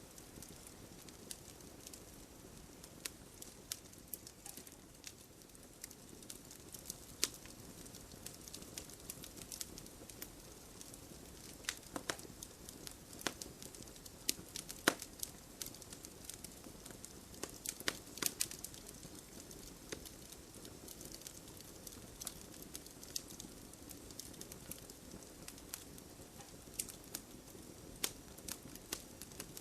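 Wood fire burning in a fireplace, crackling steadily with irregular sharp pops and snaps over a soft low rush.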